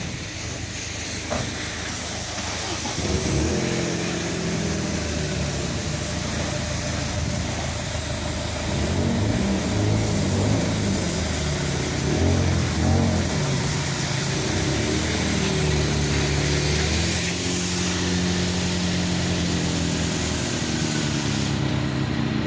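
Off-road SUV engine running with revs going up and down, over a steady hiss that stops near the end.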